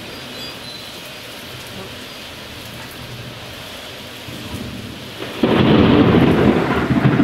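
Steady heavy rain, then about five seconds in a sudden loud thunderclap that breaks in and keeps rumbling.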